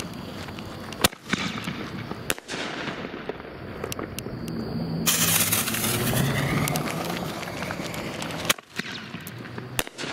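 Fireworks artillery shells fired from a mortar tube: a few sharp bangs from launches and bursts, the loudest about a second in and near the end, with a loud steady hiss from about halfway through.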